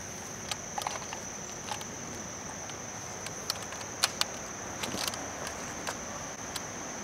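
Insects calling steadily at a high pitch, with a handful of short, sharp clicks and light knocks from the camera being handled and set on a tripod.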